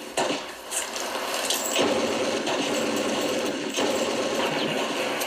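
BB gun firing on full auto: a rapid, continuous mechanical clatter with a short dip about half a second in.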